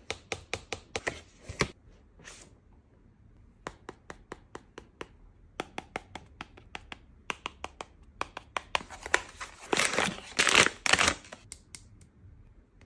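Long fingernails tapping and clicking on a cardboard blind box, a quick run of separate sharp taps, several a second. About ten seconds in come two louder stretches of rustling as the packaging is torn and handled.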